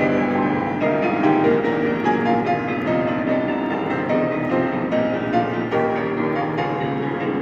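Solo piano playing a pop-song arrangement: a steady stream of melody notes over chords.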